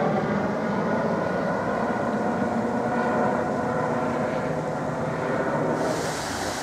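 A steady engine drone made of many held tones. About six seconds in, a steady rush of flowing water comes in.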